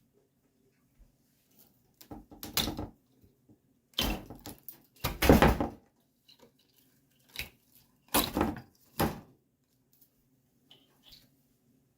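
Old screen being peeled and pulled off a screen door frame, in several short noisy bursts with pauses between, the loudest about five seconds in.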